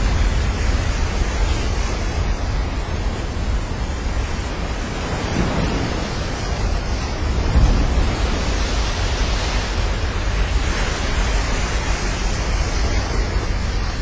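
Ocean surf with wind rumbling on the microphone: a steady rushing noise with a heavy low rumble.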